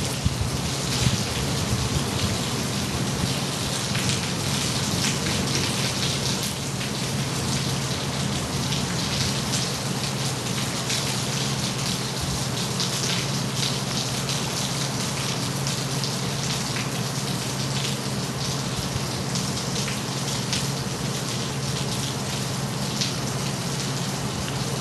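Steady rain during a thunderstorm, many drops striking a hard surface in a dense, even hiss that keeps on without a break.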